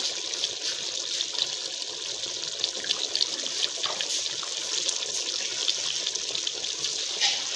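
Chicken cooking in its own released juices in a steel pot on the stove: a steady hiss of bubbling and sizzling, with small crackles and pops throughout.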